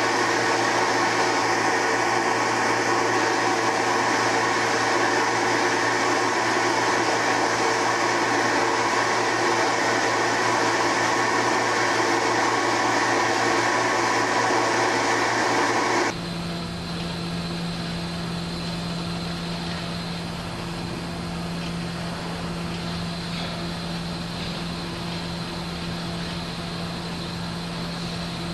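Small automatic soymilk-making machine running: a loud steady motor whir that cuts off abruptly about halfway through, giving way to a quieter, lower steady hum.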